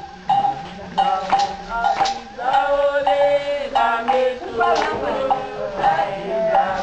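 A group singing together over hand drums, with sharp drum strokes cutting through the held sung notes.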